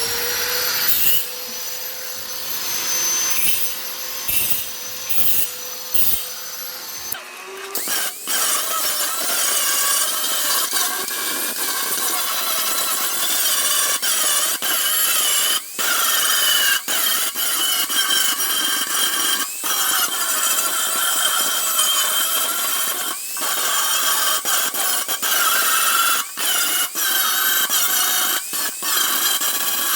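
Handheld power tool spinning up with a rising whine and running free for several seconds, then grinding against the steel body of a Vespa PX from about eight seconds in: a loud, harsh, continuous rasp that breaks off briefly now and then as the tool is lifted.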